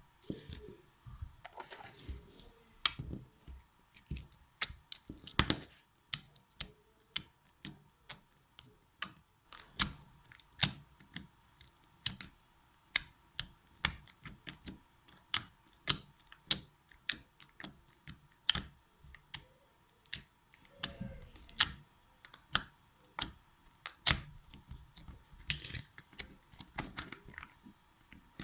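Slime being squeezed and pressed by hand, giving an irregular run of sharp clicks and pops, about two or three a second, with a few softer, longer squishes among them.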